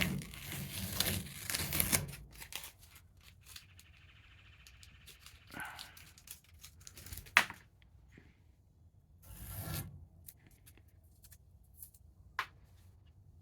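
Masking tape and paper being peeled and torn off a freshly painted truck toolbox. There is a loud ripping stretch in the first two seconds, a steady rasp of tape coming away around four to six seconds in, a sharp click a little after seven seconds, and another rip near ten seconds.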